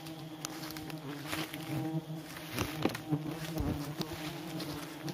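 Giant honey bees swarming and buzzing in a steady, many-voiced hum as their comb is harvested, with a few light knocks.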